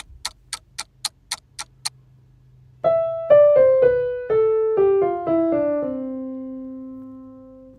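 A run of sharp, even clicks, about four a second, then a keyboard piano plays the closing part of a C major melody: about nine notes stepping mostly downward, ending on a long held low note that slowly fades.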